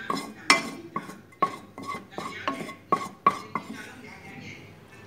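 Spatula clinking and scraping against a frying pan and a ceramic plate while stir-fried abalone is served out: a quick run of about ten sharp knocks with a short ring, stopping about three and a half seconds in, then only faint scraping.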